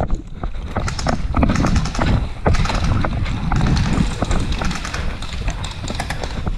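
Footfalls and rattling gear from a player on the move, with wind buffeting the microphone as a low, uneven rumble, and many irregular sharp clicks and knocks throughout.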